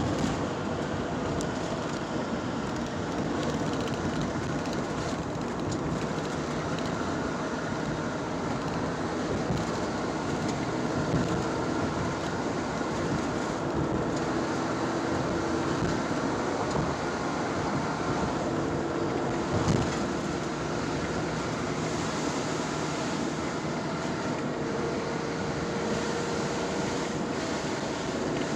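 A vehicle running with a steady, even noise, with a few faint held tones coming and going in the middle.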